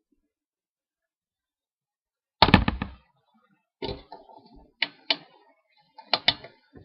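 A loud knock, then a few sharper clicks and taps spaced about a second apart, after a couple of seconds of silence: hands working small pieces of polymer clay on a hard work surface.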